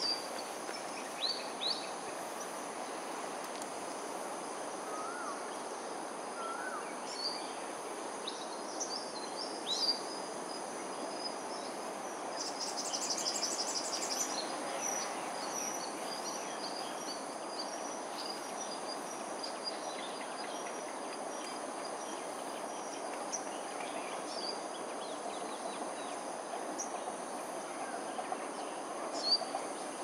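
Outdoor morning ambience: a steady background hum with a constant high insect drone, over which small birds give scattered short chirps. A rapid trill runs for about two seconds near the middle.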